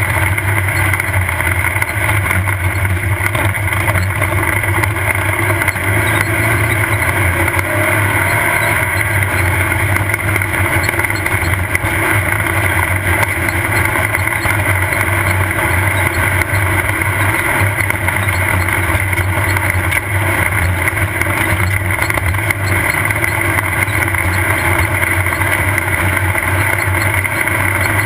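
Off-road race vehicle's engine running hard at a steady speed, with a constant drone and road and wind noise.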